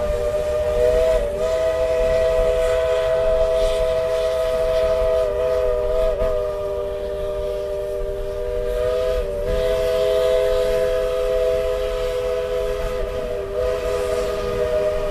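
Steam locomotive whistle sounding one long, steady blast, a chord of several notes that wavers briefly in pitch a few times, over the low rumble of the train cars rolling along the track.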